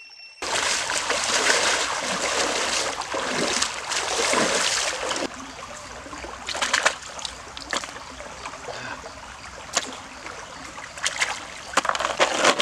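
Shallow stream water, at first a loud rush of splashing for about five seconds. Then it turns quieter, with small splashes and sharp clicks as field snails are scooped by hand from the water and dropped into a wicker basket.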